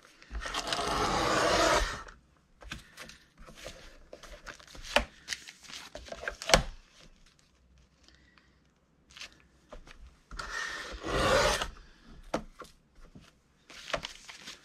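Paper trimmer cutting through a folded stack of pages to even the edges of a signature: two long scraping cuts, one near the start and one about ten seconds in. Between them, short taps and rustles as the paper is handled.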